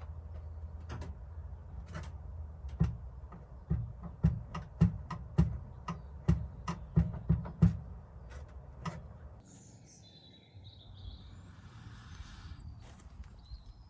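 A run of sharp knocks with a low thud, about two a second for several seconds, over a low steady hum. Then a bird chirping in the last few seconds.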